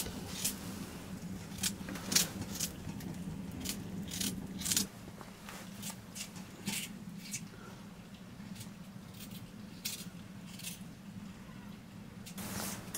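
Crisp, irregular cuts of a long knife slicing pieces off a raw white radish held in the hand, with the pieces dropping into a plastic bowl. A low steady hum sits under the first five seconds and then cuts off.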